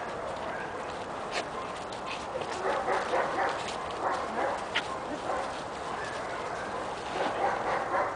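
Six-month-old Giant Schnauzer puppy barking now and again while heeling close at the handler's side, eager for the reward at her hand.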